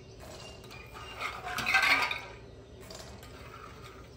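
Soaked raw chickpeas poured from a steel bowl into a thick-bottomed metal kadai, rattling and clattering against the pan in one burst of about a second, starting a little after a second in.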